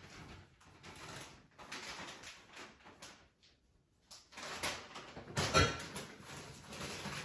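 Kitchen rummaging: rustling and light knocks of things being handled in the cupboards, with a louder sharp knock about five and a half seconds in.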